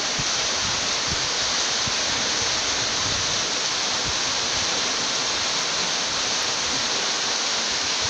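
Steady rushing and splashing of water from the Merdven-Tubyu waterfall, streaming and dripping off the grotto's rock overhang into the pool below.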